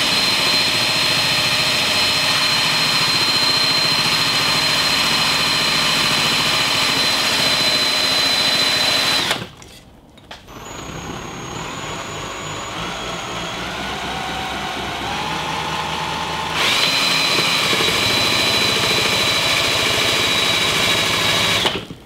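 Electric drill spinning a DIY ceiling-fan-motor alternator, with a loud, steady, high motor whine. About nine seconds in it drops away, comes back quieter with its pitch slowly climbing, then returns to full speed about seventeen seconds in before cutting off.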